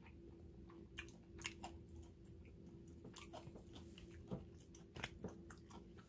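Faint chewing of a mouthful of rice and butterbur leaf: soft, irregular wet clicks and small crunches, over a low steady hum.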